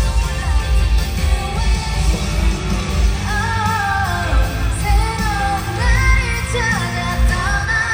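K-pop song played loud over a concert sound system, with a woman's voice singing the melody live over a steady, pulsing bass beat.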